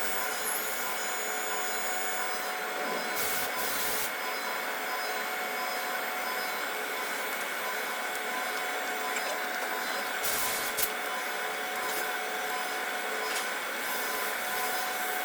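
CNC machine tool running steadily: a constant whine of several fixed tones over a hiss, with brief louder noisy stretches about three seconds and ten seconds in.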